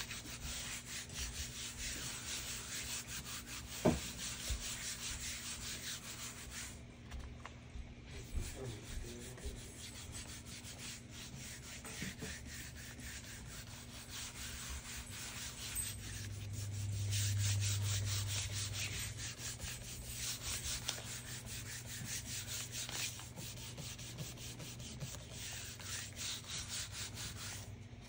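A palm rubbing quickly back and forth over a sheet of paper laid on a gel printing plate, burnishing it to lift the print: a dry, fast swishing of skin on paper, with a couple of short pauses. A low hum swells for a few seconds midway.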